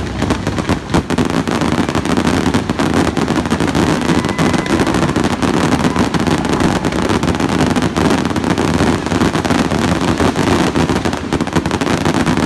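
Fireworks display in a dense barrage: many shells and rockets bursting at once, a rapid, unbroken run of overlapping bangs and crackles.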